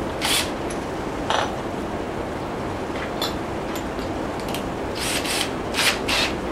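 A cordless drill being handled by hand, giving short rubbing and rasping sounds, several of them close together near the end.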